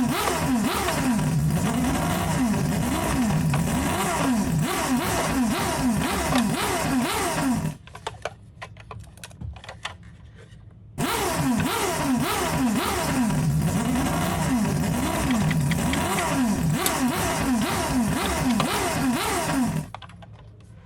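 Toy minicar wheels running along a plastic surface, a dense rattling whir full of quick rising and falling pitch sweeps. It comes in two long runs with a quieter pause of light clicks in the middle.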